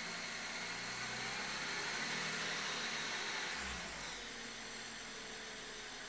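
BMW E93 330i straight-six engine idling in park, heard from inside the cabin: a steady hiss with a whine over it, easing slightly in loudness about four seconds in. The owner counts it among engine noises he finds strange.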